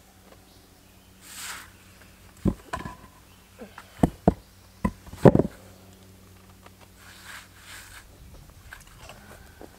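Flat fieldstone being shifted and set on top of another stone in a rustic rock step: a string of sharp stone-on-stone clunks, the loudest about five seconds in, with softer scraping and rustling of soil and dry leaves before and after.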